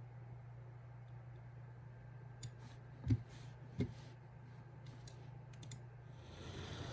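Steady low hum of an aquarium power filter's motor, with a few light clicks and two sharper knocks about three and four seconds in. Near the end a hiss like rushing water comes up.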